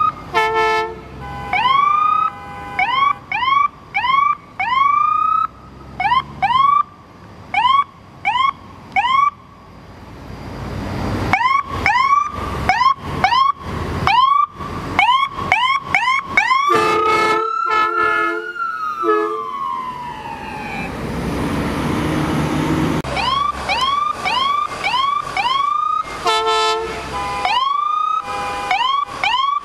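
Emergency vehicle siren sounding in short rising chirps, repeated in quick clusters. In the middle they come with a lower, stuttering horn-like tone and one longer rise that slowly falls away. Traffic noise runs underneath.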